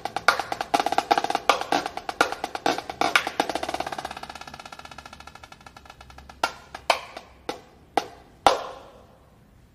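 Marching snare drum played solo with sticks: quick, dense strokes, then a fast roll that fades down through the middle, followed by five single hard hits about half a second apart, the last one the loudest, ringing out near the end.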